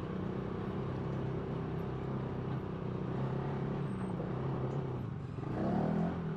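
Off-road buggy engine running steadily under way, its note shifting briefly near the end.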